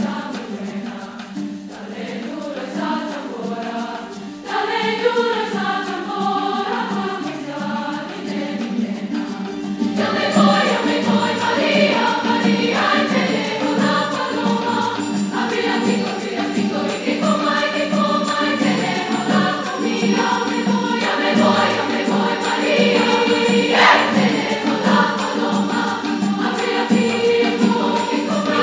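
Treble choir singing in parts, accompanied by piano, guitar and light percussion. The music grows fuller and louder about ten seconds in.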